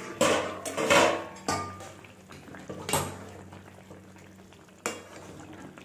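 Metal spatula clanking and scraping against a metal cooking pot while stirring a simmering fish curry: several sharp clinks, the loudest in the first second, another about three seconds in and a last one near the end.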